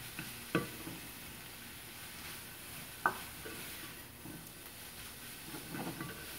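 Grated carrots and peppers sizzling softly in a frying pan while a wooden spatula stirs them, with a few sharp knocks of spatula or pan: one about half a second in, one about three seconds in, and a quick cluster near the end.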